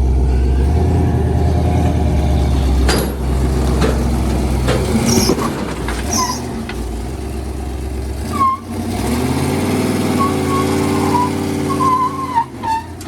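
A large vehicle's engine running, its pitch dropping a few seconds in and later sagging and rising again, with short high-pitched squeals near the end.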